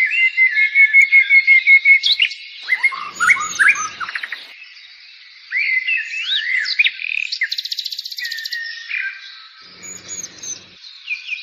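Several birds chirping and singing over one another in quick, high calls, with a fast buzzy trill about two-thirds of the way through.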